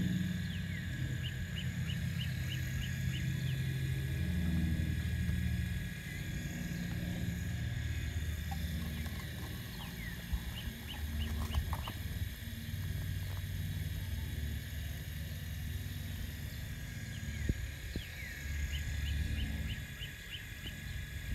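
Motors of a radio-controlled CAT excavator running as it digs and swings: a low drone that swells and eases every few seconds with the arm's movements, over a steady high whine.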